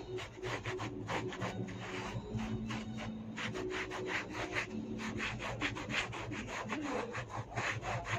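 Paint applicator rubbing silver shading paint over a rough, textured synthetic plaster panel in quick scratchy back-and-forth strokes, several a second.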